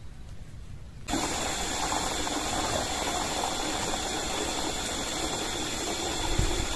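Steady rush of running water that starts abruptly about a second in.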